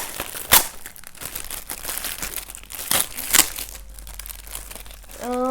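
Wrapping paper crinkling and tearing as a gift is unwrapped by hand, with a few sharp rips among steady rustling.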